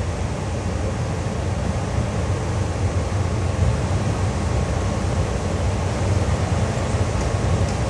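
JNR Class EF58 electric locomotive standing still with its equipment running: a steady low rumble under an even hiss.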